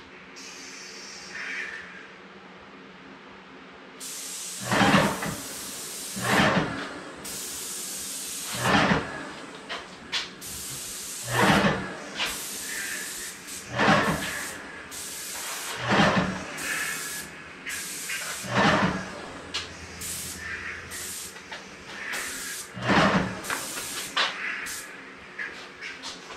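Compressed-air spray gun hissing as it sprays glaze over a painted cabinet door. It starts about four seconds in and comes in repeated loud whooshes, one every two to three seconds, as the gun sweeps back and forth in passes.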